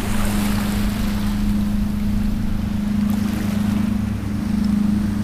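Small outboard motor on a kayak running at a steady speed, a low even hum, with water rushing past the hull.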